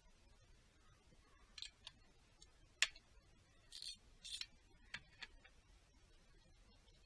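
A few faint clicks and short scraping rustles of metal parts being handled by hand in a car engine bay, the sharpest click about three seconds in.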